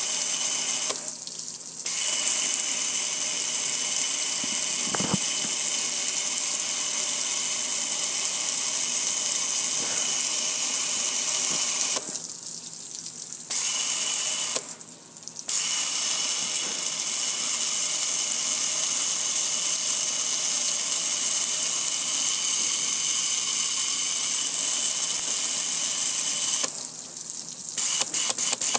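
Water spraying onto a metal propane gas grill and splashing off it, a loud steady hiss. It cuts out briefly three times and stutters on and off near the end.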